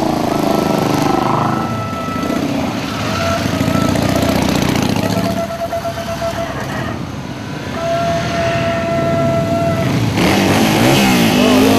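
Motorcycles riding past one after another, engines revving as each goes by, with horns sounding in several long steady blasts. Near the end one bike passes close, its engine pitch swooping as it goes by.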